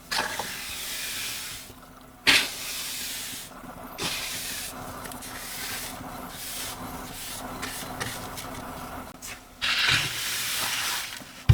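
Keyboard being cleaned: a run of hissing noise with several loud bursts that each start suddenly, about five in all.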